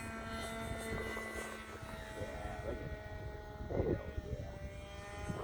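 Radio-controlled model P-51's glow-fuel engine buzzing steadily as the plane flies its circuit at a distance.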